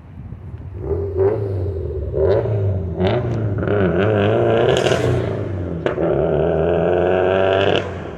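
An engine running close by. It builds up over the first few seconds, holds loud and steady with a wavering tone, then drops off sharply near the end. A few sharp clicks sound along the way.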